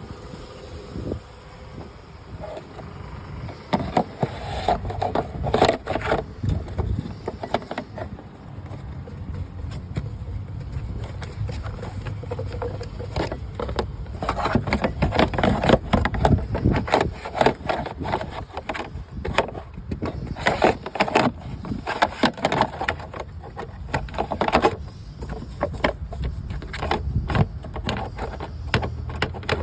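Car engine running with an uneven rumble and irregular knocks and stutters, the sign of a misfire. The knocks come thicker and louder about halfway through.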